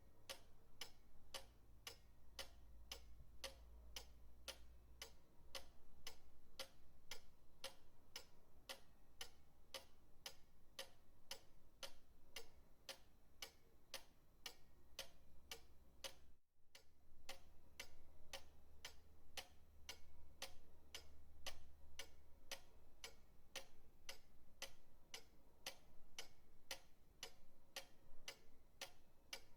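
Pendulum clock ticking steadily, about two ticks a second, with a very brief break in the sound about halfway through.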